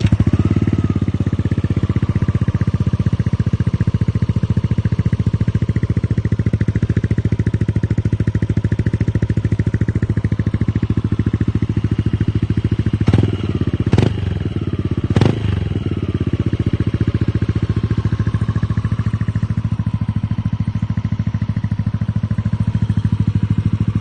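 Yamaha Aerox 155's single-cylinder four-stroke engine idling through an aftermarket Akrapovic carbon muffler with a trioval tip, a steady rapid pulsing. About halfway through, three short throttle blips about a second apart, the revs falling back to idle after each.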